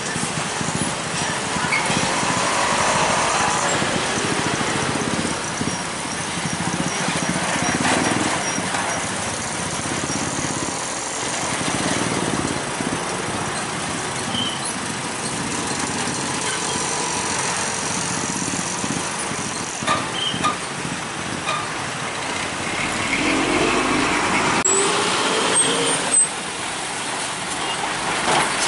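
Diesel trucks, cars and motorcycles passing close by in steady traffic. About three-quarters through, one engine's note climbs as it pulls away, and a few sharp knocks sound near the end.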